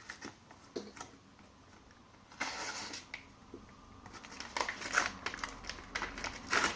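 Paper and cardboard packaging rustling and crinkling as a posted comic is unwrapped by hand: one longer rustle about two and a half seconds in, then a quick run of crinkles and small taps in the last two seconds.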